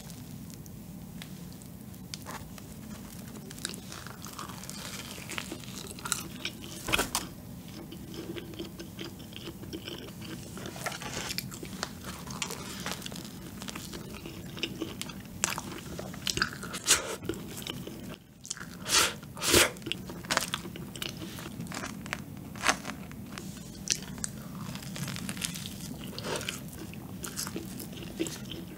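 Close-up eating sounds of a milk cream doughnut being bitten into and chewed: irregular soft bites and wet mouth clicks, loudest about two-thirds of the way through, over a steady low hum.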